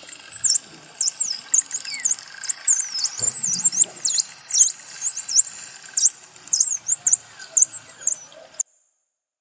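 Dolphins whistling: many quick, high-pitched whistles that swoop down and back up in pitch, overlapping one another. The sound cuts off suddenly near the end.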